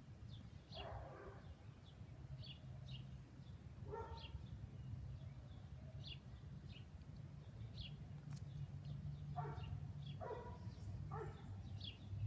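Faint dog barks in a few short clusters, over short high bird chirps repeated about once a second and a low steady hum.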